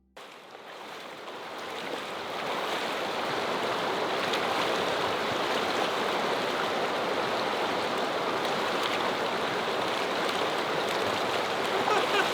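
Rushing water of the Henry's Fork river, a steady rush that fades in over the first couple of seconds and then holds level.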